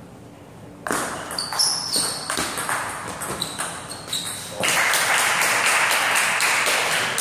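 Table tennis rally: the ball clicking off the paddles and the table in quick succession. About four and a half seconds in the point ends and the spectators applaud.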